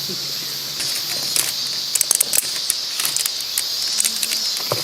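Irregular sharp clicks and clacks, a few close together around two seconds in, over a steady high-pitched insect drone.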